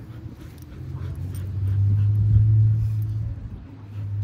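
A dog making a long, low grumbling vocalization that builds about a second in and sets in again near the end.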